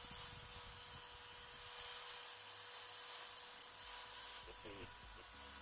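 Tiedao 350-watt corded electric drill running steadily at its maximum 4500 RPM with nothing in the chuck, heard faintly as an even hiss with a thin steady whine.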